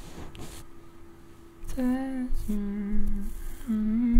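A man humming a slow, soft melody close to the microphone, in long held notes that begin about two seconds in. Before the humming there are only faint soft rustling strokes.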